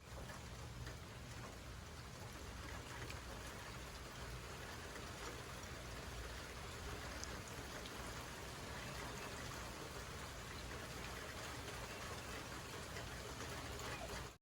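Heavy rain from a hurricane's outer band coming down steadily: a dense, even hiss with faint scattered drop ticks.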